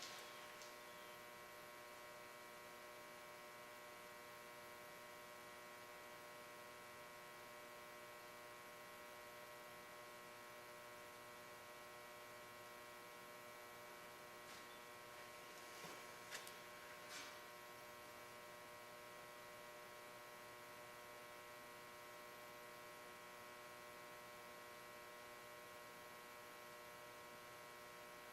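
Near silence with a steady electrical hum made of many fixed tones. A few faint, brief scrapes come about sixteen seconds in.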